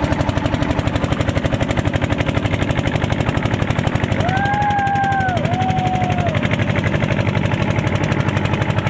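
Motorboat engine running with a rapid, even chugging of about ten beats a second. Near the middle, two long held tones sound one after the other, the second slightly lower.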